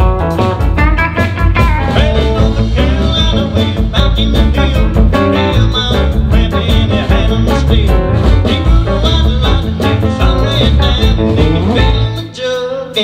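Live country band playing loudly with electric guitar, electric bass and drums, at a steady beat. About a second before the end the bass and drums drop out briefly.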